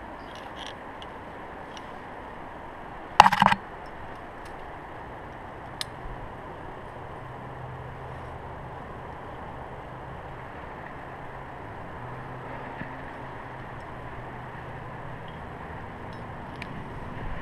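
A rock climber starting up a granite crack, heard on a helmet-mounted GoPro: a steady hiss, with a brief loud clatter about three seconds in and a single faint click a couple of seconds later.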